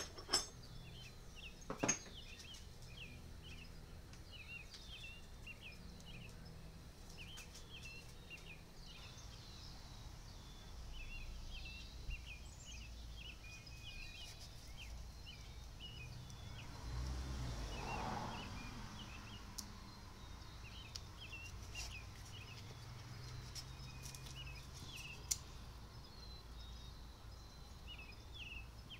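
Birds chirping in the background, short calls repeating again and again, with a few sharp clicks near the start and a low rushing noise that swells and fades past the middle.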